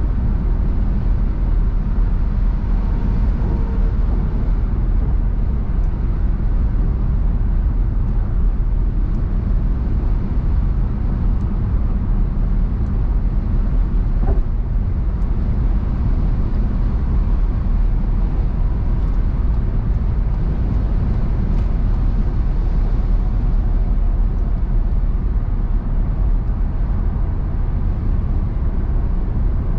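Steady road noise and engine hum of a car cruising at motorway speed: a constant low rumble of tyres on the road, with no change in pace.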